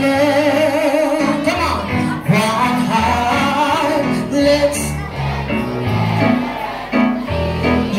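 A woman singing into a handheld microphone over a backing track with a bass line. She holds a long wavering note at the start, then carries on with shorter sung phrases.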